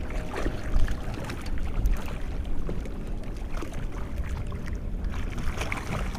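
Water sloshing around a small boat, with steady low wind rumble on the microphone and scattered light clicks and knocks.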